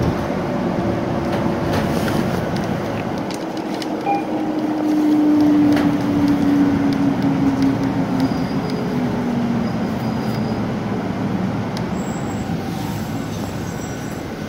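A Nova Bus LFS city bus in motion, heard from inside the cabin: steady engine and road noise with light rattles. A drivetrain whine grows louder a few seconds in, then falls slightly in pitch and fades away.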